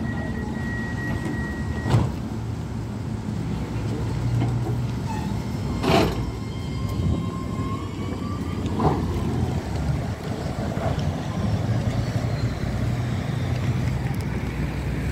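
Light-rail tram at a platform: a low steady hum under wind and street noise, with a thin steady tone that stops about two seconds in, a few sharp knocks (the loudest about six seconds in) and a faint rising whine shortly after.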